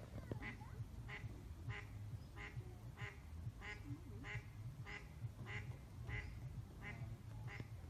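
A duck quacking over and over in an even series, about one and a half quacks a second.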